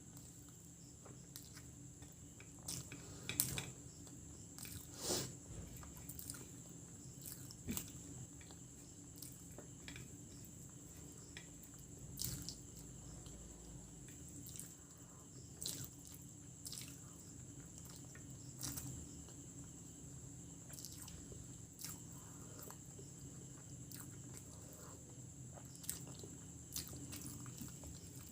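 Close-miked mouth sounds of a person eating chicken biryani and gravy-rich egg masala: irregular wet smacks, bites and chewing clicks every second or two, over a steady faint hum.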